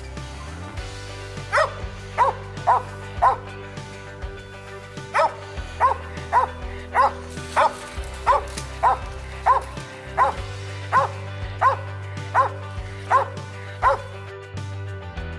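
A hunting dog barking repeatedly in short, evenly spaced barks, with a brief pause about four seconds in; the barking stops shortly before the end. Background music with low held notes plays throughout.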